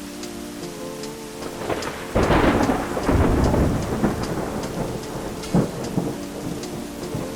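A thunderclap about two seconds in, rumbling and fading over several seconds with a second sharp crack near the end, over steady rain, during a cold-front thunderstorm.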